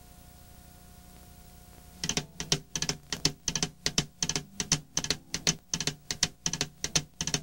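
Faint tape hiss and hum, then about two seconds in a song's intro starts with a fast, steady drum beat of sharp hits, several a second.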